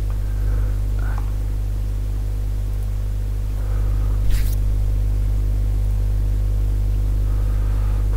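Steady low electrical hum with a buzz of overtones, unchanging throughout; a brief faint hiss about four seconds in.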